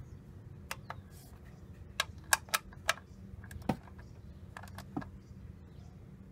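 Inch-pound torque wrench on a socket extension clicking as the ignition coil's hold-down bolt is tightened: about ten sharp, irregular metallic clicks, the loudest about two and a half seconds in.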